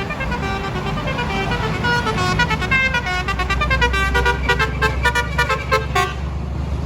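Tour bus's basuri telolet horn playing a tune of short stepped notes that come faster and faster, then stop abruptly about six seconds in, over the bus engine's steady low rumble.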